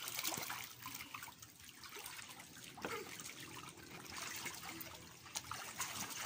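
Water trickling and splashing in a shallow children's pool, with a garden hose running into it and kids moving through the water.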